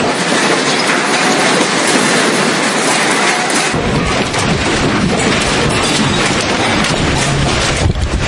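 Loud, continuous rattling and rumbling of a building and its contents shaking in the magnitude 9.0 Tōhoku earthquake of 2011. A deep rumble comes in about four seconds in.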